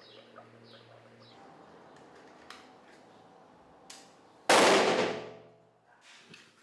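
Hydrogen gas made from water by electrolysis being ignited in a test: a single sudden loud bang that dies away over about a second, after two faint clicks. Birds chirp during the first second or so.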